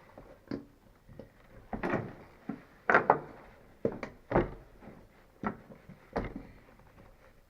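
Irregular knocks, clunks and scrapes of motorcycle seat parts and metal brackets being handled and pushed into place, the loudest a cluster about three seconds in.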